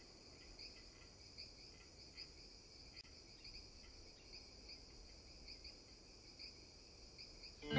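Crickets chirping faintly, a steady run of short, evenly repeated chirps.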